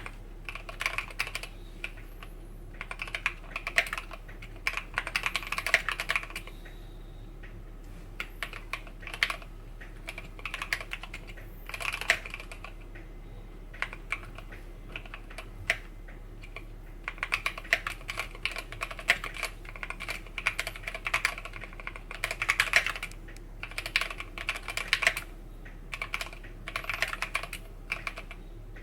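Typing on a Drop Tokyo60 mechanical keyboard fitted with Gateron G Pro Yellow linear switches: rapid key clicks and clacks in bursts of several seconds, broken by short pauses.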